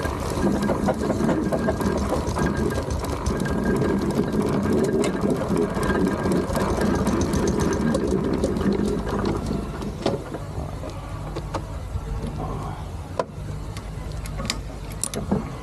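Steam traction engine under way, its motion and gearing clattering rapidly and steadily. About ten seconds in the clatter drops away to a quieter, steady rumble with a few sharp clicks near the end.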